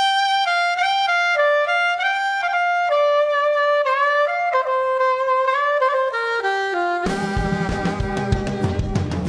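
A saxophone plays an unaccompanied melody of short held notes, stepping downward near the end. At about seven seconds a full band with drums and bass comes in.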